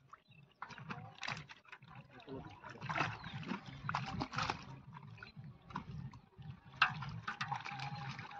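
Live fish flapping and splashing in shallow water inside a hauled-in mesh net, heard as irregular wet slaps and sloshes.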